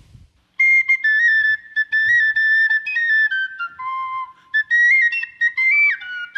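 Tin whistle playing a Celtic melody, one high note at a time in short phrases, starting about half a second in.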